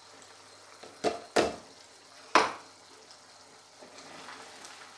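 Three sharp knocks of a utensil against cookware, two close together about a second in and one more a second later. Near the end a spatula starts stirring the thick beef and potato curry in the pan, with a faint scraping sizzle.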